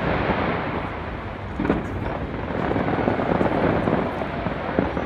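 Distant fireworks: a continuous rumble of overlapping bursts, with a sharper bang about a second and a half in and another near the end.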